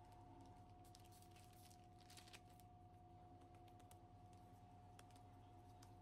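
Near silence: faint scattered crinkling clicks from a plastic sheet under hands shaping bread dough, bunched about a second to two seconds in, over a steady faint hum.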